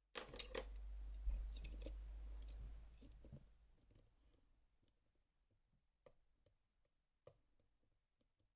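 Lockpicking tools being handled and set in an M&C Minos lock: a few sharp metal clicks with a low handling rumble for the first three seconds, then sparse light clicks and taps.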